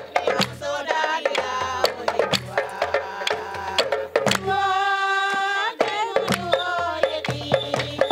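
Women singing a traditional song over fast hand drumming on a pair of small goblet drums, with hand claps. Midway a voice holds one long high note for about a second and a half.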